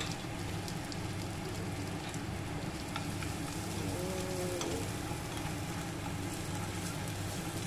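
Chopped garlic and ginger sizzling steadily in hot oil in a small non-stick saucepan, frying until fragrant. A few light taps of wooden chopsticks against the pan come as the aromatics are stirred.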